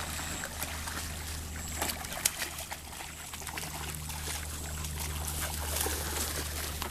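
Water splashing and trickling over a steady low rumble, with a sharp knock about two seconds in.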